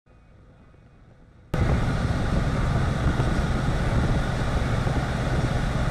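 Faint hiss, then about a second and a half in a steady low rumble cuts in abruptly: a car's running engine and cabin noise heard from inside the car as it backs slowly out of a driveway.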